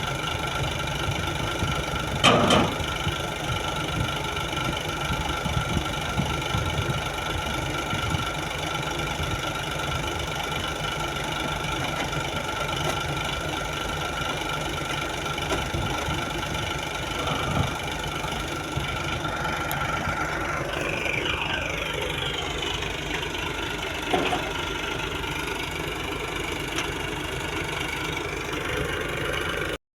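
Crane's engine running steadily, with a loud knock about two seconds in, fainter knocks later, and a falling whine a little past the middle.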